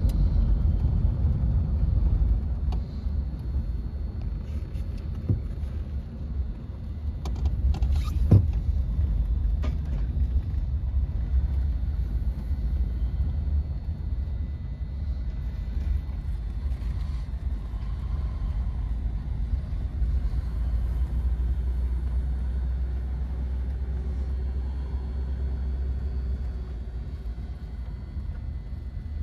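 1951 Lincoln Cosmopolitan convertible's flathead V8 running as the car drives, a steady low rumble with road and wind noise in the open cabin. A single sharp knock about eight seconds in.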